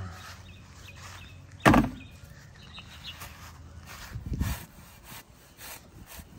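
Long-handled square-point shovel scooping dog droppings off a lawn, its blade scraping and rustling through the grass. A sharp knock comes about a second and a half in and a duller thud a little after four seconds.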